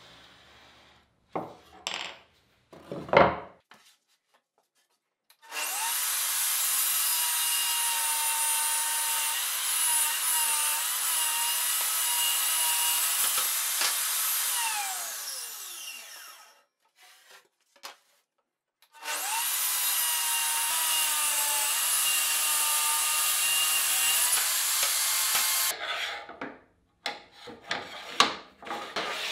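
Electric power saw cutting plywood in two long passes, its motor tone steady through each cut; after the first it is switched off and winds down with a falling pitch. A few sharp knocks come before the first cut, and clatter near the end.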